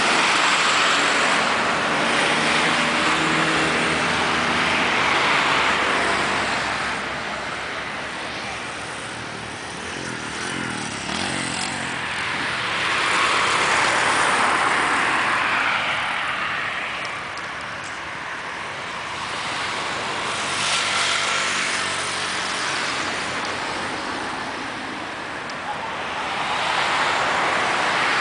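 Highway traffic: cars and trucks driving past one after another, the tyre and engine noise swelling and fading several times as vehicles go by.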